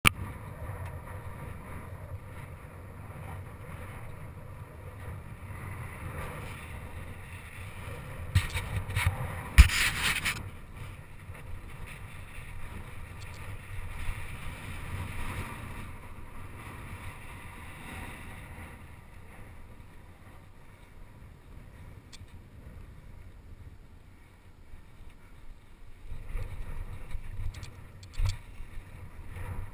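Wind rushing over a handlebar-mounted action camera's microphone and bicycle tyres rolling on a dirt track, a steady low rumble. About a third of the way in comes a burst of clattering with one sharp knock as the bike jolts over the jumps, and a few more knocks near the end.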